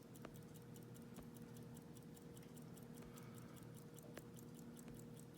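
Near silence: faint, even ticking about five times a second over a low steady hum, with a few faint single clicks.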